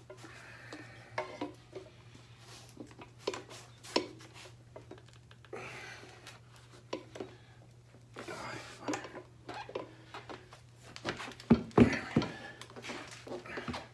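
Metal tire irons clinking and scraping against a motorcycle wheel rim as an old tire that is stuck fast is levered off by hand. Irregular clicks and knocks, with a run of louder knocks near the end.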